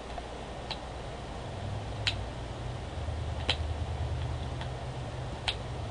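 Computer mouse clicking, four or five sharp single clicks spaced a second or more apart, over a low steady hum.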